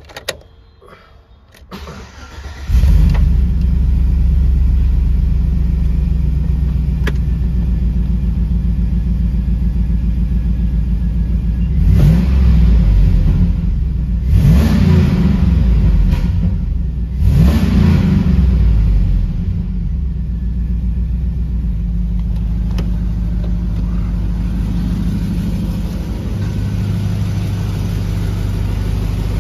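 A 2004 Chevrolet Silverado's 5.3L LM7 Vortec V8 is cranked and starts about two seconds in, then runs steadily. It is revved three times in quick succession near the middle, then settles back to a steady idle.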